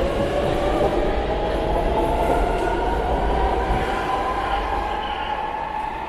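Brussels Metro train pulling away from the platform: its traction motors whine, rising steadily in pitch as it speeds up, over the rumble of the wheels on the rails. The sound fades after about four seconds as the train leaves.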